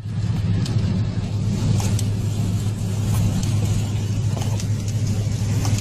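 A car driving in the rain, heard from inside the cabin: a steady low drone of engine and road with an even rush of wind and rain noise and a few light clicks.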